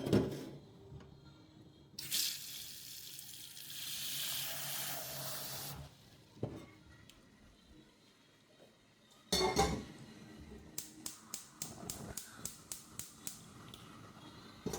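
Kitchen work sounds: a knock, then a tap running for about four seconds, filling something. Another knock and a clatter of dishes follow, then a run of about a dozen quick light taps, like a utensil on a bowl.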